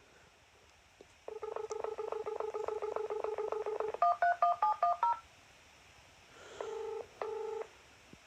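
Telephone line sounds: a warbling dial tone for almost three seconds, then a quick run of about eight touch-tone (DTMF) digits as a number is dialed, then two short bursts of the double-ring ringback tone of an Australian phone line as the number rings.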